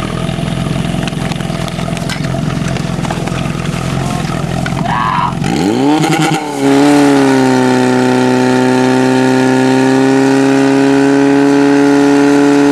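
Portable fire pump's engine running at idle, then throttled up about six seconds in with a quick rising whine. It then holds a loud, steady high-pitched full-throttle note while it pumps water into the hose lines.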